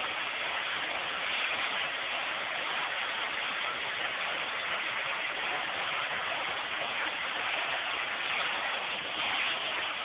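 Household vacuum cleaner running steadily, a constant rushing noise of motor and airflow.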